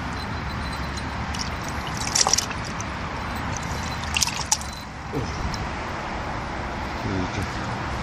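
Water sloshing and splashing in a bucket as a catfish thrashes while it is grabbed and lifted out by hand, in two short bursts: about two seconds in and again around four seconds in.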